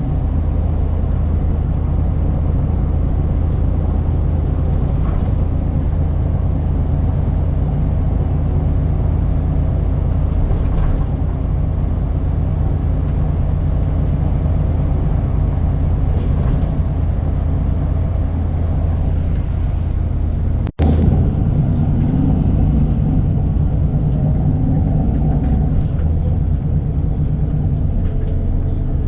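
Bus engine running with a steady low drone. The sound cuts out for an instant about twenty seconds in, then the engine rumble carries on.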